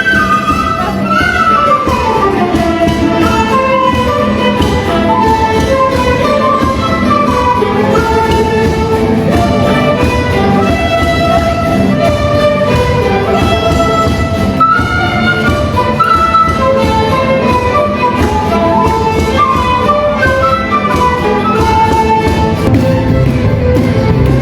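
Instrumental ensemble music led by violins, playing a moving melody at an even, loud level, with a quick falling run of notes in the first few seconds.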